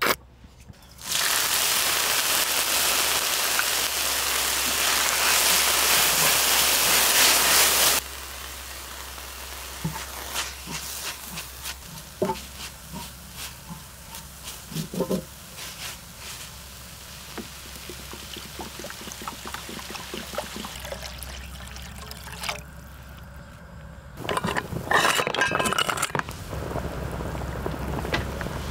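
Frying in a large cast-iron cauldron-lid pan: a loud, steady sizzle for several seconds, then quieter frying with scrapes and clinks of stirring. Near the end comes a brief rush of poured liquid, followed by a steady boil.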